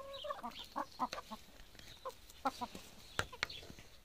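Hens clucking softly in short, scattered clucks while foraging, with one sharp click a little past three seconds in.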